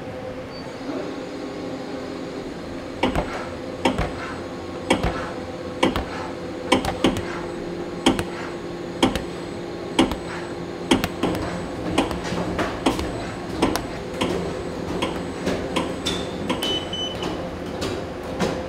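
Food-processing machine running with a steady hum, and from about three seconds in, regular metallic knocks or clanks roughly once a second.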